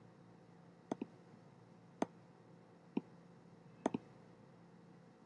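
Computer mouse button clicking about once a second, five times, twice as a quick pair of clicks.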